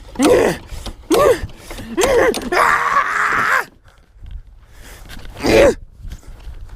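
A series of short, groaning vocal sounds, each under a second, with a rough, noisy stretch of about a second in the middle.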